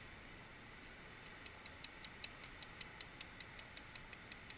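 A rapid, even series of light, high clicks, about five a second, starting about a second in and stopping near the end.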